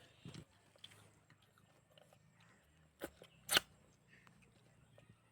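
A few short, sudden mouth noises of someone biting and chewing a lemon, the loudest about three and a half seconds in.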